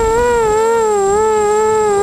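Racing quadcopter's four brushless 2280KV motors and 5040 props whining, heard from the onboard camera; the pitch wavers gently up and down with throttle. A thin, steady high whistle sits above it.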